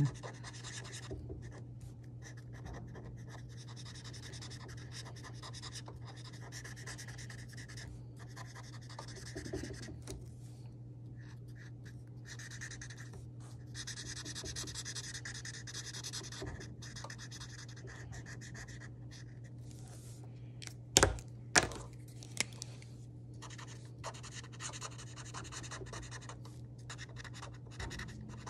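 Mr. Sketch felt-tip marker scratching back and forth on paper in quick short strokes as an area is coloured in, over a steady low hum. About two-thirds of the way through come two sharp clicks half a second apart.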